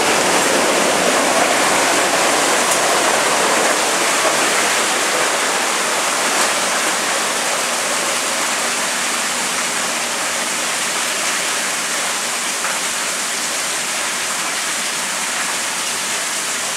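Floodwater pouring through a burst basement window and splashing onto the floor, a steady rushing like a waterfall that eases slightly over the seconds.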